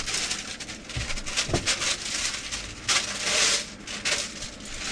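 Paper packaging rustling and crinkling as it is handled and opened, loudest about three seconds in, with a couple of soft thuds near the start.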